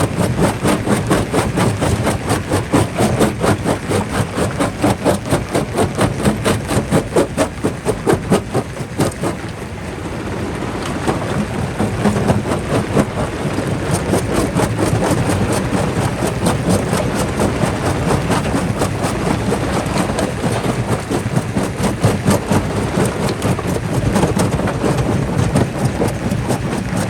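Jaw crusher running and crushing rock: a steady heavy rumble with a rapid, even pulsing that eases briefly about ten seconds in, then picks up again.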